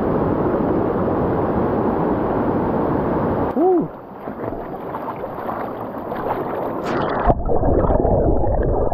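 Rushing mountain stream water, a dense steady noise. The sound changes abruptly twice, about three and a half and seven seconds in. From about seven seconds in, wind rumbles on the microphone under the water.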